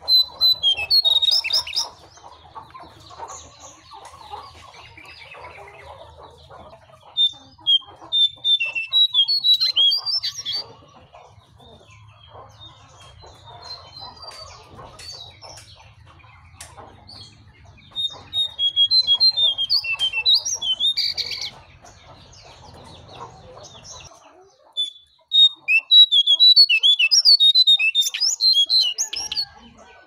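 Caged jongkangan songbird singing in four bouts of rapid, high twittering notes, each a few seconds long, with quieter pauses between. A low steady hum sits underneath until about three quarters of the way through.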